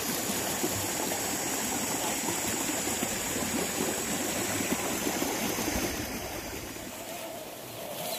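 Running water, like a stream, with a faint steady high-pitched whine over it.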